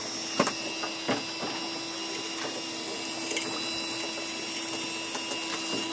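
A steady mechanical hum made of several fixed tones, with a couple of short knocks about half a second and a second in.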